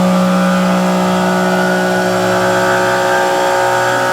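CNC milling machine running a cut in 7075-T6 aluminium, a steady whine of several tones from the spindle and cutting. About three and a half seconds in, the main tone drops lower.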